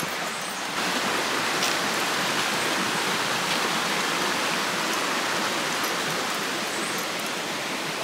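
Shallow river running over rocks: a steady rush of flowing water, stepping up slightly about a second in.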